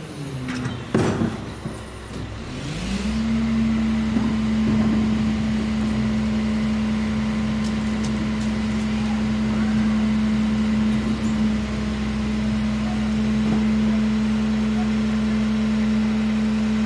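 Crane Carrier (CCC) garbage truck's diesel engine. After a short dip with a few knocks, it rises in pitch about three seconds in and then holds a steady running tone.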